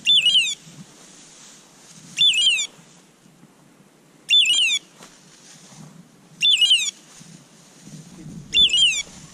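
A bird dog's beeper collar on a Brittany spaniel sounding the same short, falling electronic squawk five times, about every two seconds: the collar's point signal while the dog holds point.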